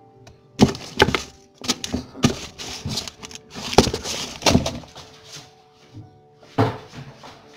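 Newspaper being handled right at the microphone: a run of paper rustles and sharp thumps, about seven loud ones, with background music holding steady tones beneath.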